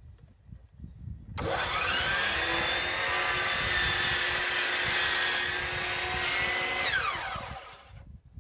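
Hercules 12-inch miter saw: the motor starts with a rising whine about a second and a half in and runs steadily at full speed as the blade is brought down into a 6x6 wooden post, then it is switched off and winds down with a falling whine near the end.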